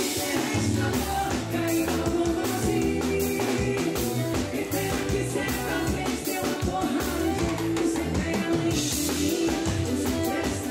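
Upbeat band music with a steady drum beat, bass and guitar, and a singing voice.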